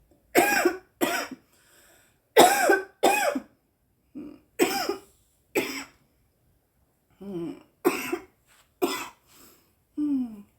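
A woman coughing from inhaling cannabis smoke: about ten short coughs, mostly in pairs, with pauses between the fits.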